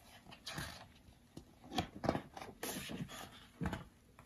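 A page of a large hardcover picture book being turned and smoothed flat by hand: a few paper swishes and rustles with soft taps against the book.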